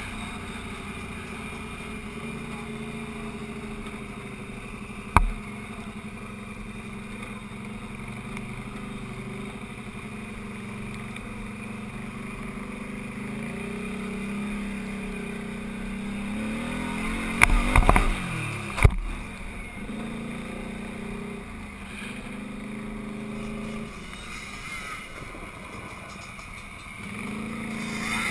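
Quad (ATV) engine running at a fairly steady pitch as the quad rides over rough dirt and grass, with a sharp knock about five seconds in and a quick cluster of knocks and bangs just past the middle.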